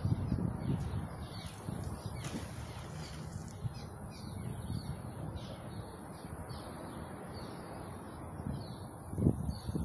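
Small songbirds chirping over and over in short, high, downward-slurred notes, over a steady low rushing background.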